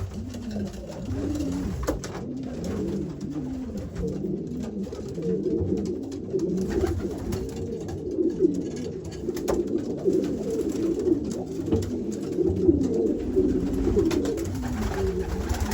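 Several racing pigeon cock birds cooing continuously, their calls overlapping, as they settle into their nest boxes.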